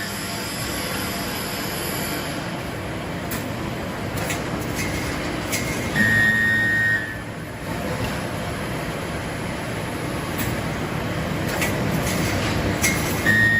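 Steel grating forge-welding machine line running with steady mechanical noise and scattered clicks. About six seconds in, and again near the end, a weld cycle gives a loud, steady buzz with a high tone over a low hum, each lasting about a second.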